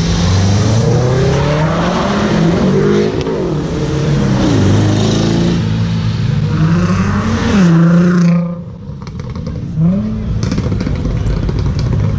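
Cars accelerating hard away one after another, their engines revving up and dropping back through gear changes, the first a Subaru Impreza's flat-four. The engine sound drops away abruptly about eight seconds in, and another car revs up about two seconds later.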